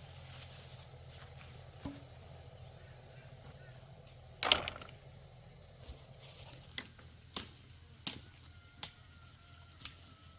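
A series of sharp, irregular knocks or blows, about seven in all, the loudest about four and a half seconds in.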